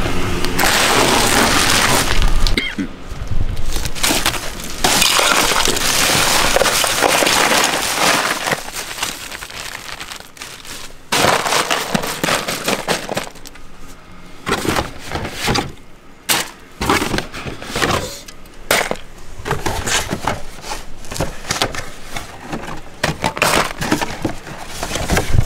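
Ice cubes poured from bags into a plastic cooler, clattering and rattling in several long pours. These give way to shorter clinks and knocks as beer cans are set down into the ice.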